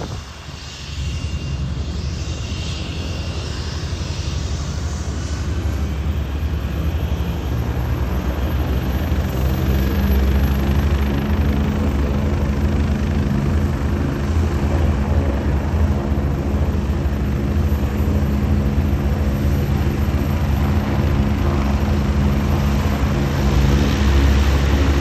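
Light aircraft engine noise at an airfield: a Cessna 172 coming in to land at low power, then from about six seconds in a steady, louder engine drone close by with a thin high whine above it, rising slightly near the end.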